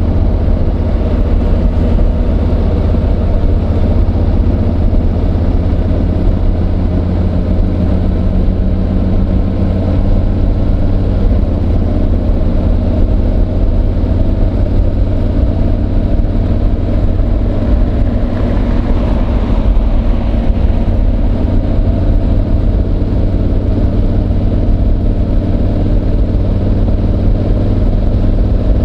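Honda NC750X's parallel-twin engine running at a fairly steady engine speed, mixed with the scraping of a microphone rubbing inside a slippery fabric jacket pocket.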